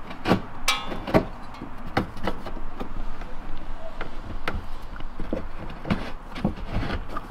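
Twist drill bit turned by hand in a hole in a car's side skirt, enlarging the hole: a series of irregular sharp scrapes and clicks as the bit bites and shaves the edge.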